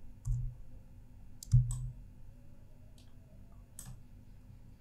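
Several separate clicks of a computer mouse, about five spread out, two of them with a low thump, over a faint steady hum.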